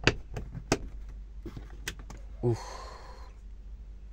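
Plastic cover of a car's interior dome light being pressed and snapped into its housing: a few sharp clicks. There is a brief vocal sound in the middle.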